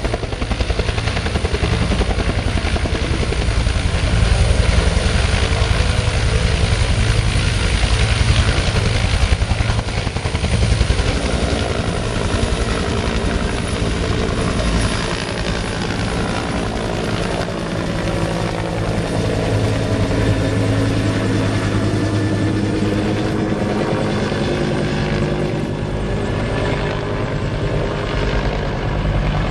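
Agusta-Bell AB212 military helicopter, its two-bladed main rotor and twin turboshaft engines running loud and steady as it moves from a low hover into a fly-past. A little past halfway the engine whine sweeps down and back up in pitch, and the sound eases slightly as the helicopter climbs away.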